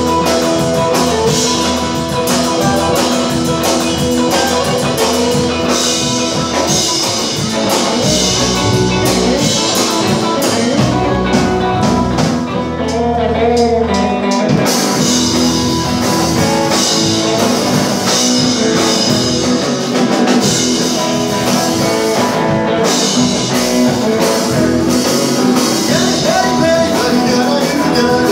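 Live rock and roll band playing: drum kit, upright bass and electric guitar. About halfway through, the cymbals drop out for a couple of seconds, leaving bass and drums, then the full band comes back in.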